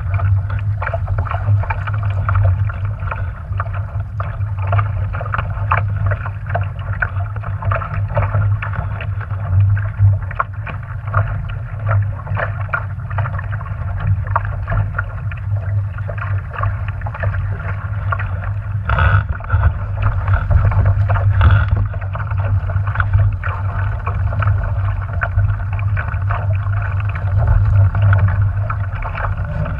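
Water splashing and slapping against the hull of a small sailing dinghy under way, over a steady low rumble of wind on the microphone. Two louder knocks come about two-thirds of the way through.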